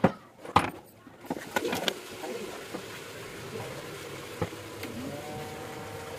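A few sharp clicks and knocks, then a hot air rework gun blowing a steady rush of air, with a steady hum joining near the end. It is heating the phone's memory and CPU chips to melt their solder so they can be lifted off the board.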